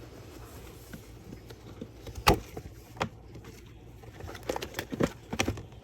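A few sharp clicks and knocks from objects being handled on a table, the loudest about two seconds in and a quick cluster near the end, over a low steady hum.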